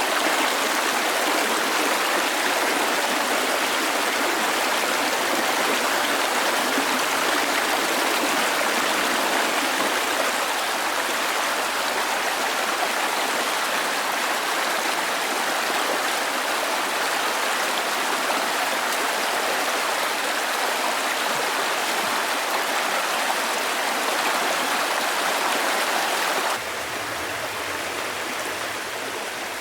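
Flowing water: a steady, even rush without pauses. It steps down abruptly in level about 26 seconds in.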